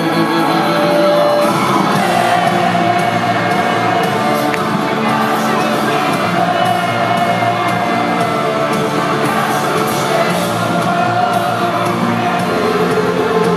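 Live rock band playing at full volume: distorted electric guitar under a male lead vocal sung into the microphone, heard from within the audience of a small hall.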